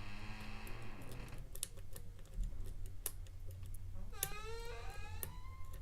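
A lock pick tapping and raking the pin stack of a challenge lock held in a vise, giving a string of small irregular metallic clicks. A brief rising squeaky tone comes in about four seconds in.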